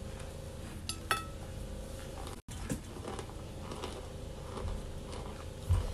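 Baked cornstarch chunks being crunched and chewed close to the microphone, with fingers scraping the powder in the bowl. There are a couple of sharp clicks about a second in and a dull thump near the end, over a steady low hum.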